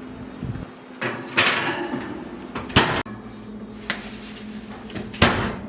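A few sharp knocks and bumps of things being handled, like a cupboard or door shutting, with a short rustle after the first; three main knocks, about a second and a half in, near three seconds and near the end, over a faint steady hum.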